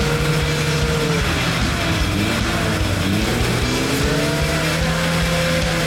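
Off-road vehicle's engine running under load, its revs rising and falling several times over a steady background of engine and drivetrain noise.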